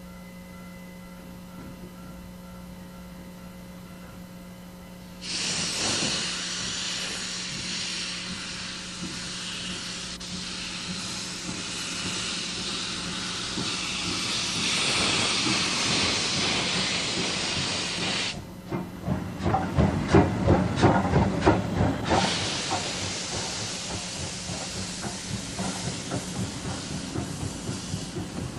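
Steam locomotive shunting: after a few seconds of steady hum, a loud hiss of steam starts suddenly about five seconds in. About eighteen seconds in come quick, loud exhaust chuffs, which settle back into hiss with fainter regular beats.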